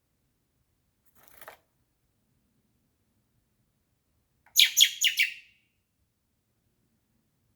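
A baby bird giving a quick run of about five loud chirps a little past halfway, after a faint short call about a second in.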